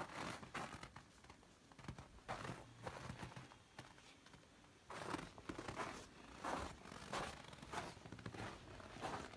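Footsteps crunching on a packed-snow floor, short scratchy steps coming in uneven runs, mixed with the rustle of clothing.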